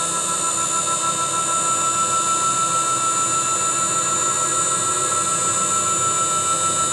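CNC router spindle running at steady speed, a constant high-pitched whine made of several steady tones.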